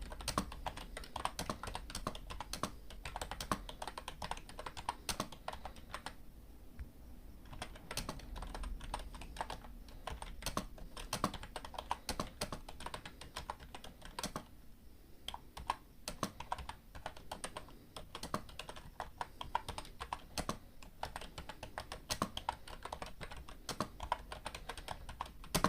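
Typing on a computer keyboard: a steady run of irregular key clicks, with two brief lulls in the typing.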